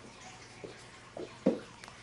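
Cats playing with toys: a few soft taps and knocks, the loudest about a second and a half in, with a small sharp click near the end.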